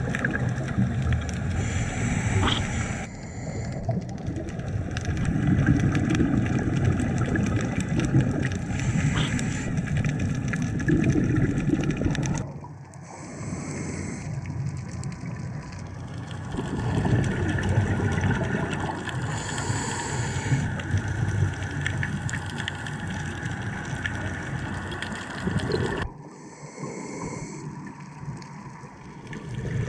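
Underwater diving audio: a diver's exhaled bubbles rumble and gurgle, broken about every six seconds by a short hiss as the diver breathes in through the scuba regulator.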